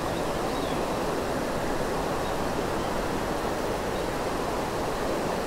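Steady rush of creek water running over a shallow rocky riffle.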